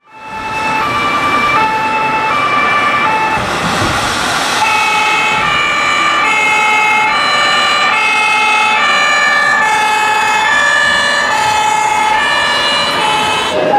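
Two-tone emergency siren of a radio-controlled Scania model fire engine, stepping between a high and a low note about every half second. From about five seconds in, a second siren pattern overlaps it.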